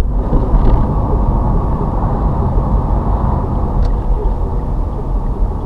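Steady engine and road rumble of a car driving slowly, heard from inside the cabin.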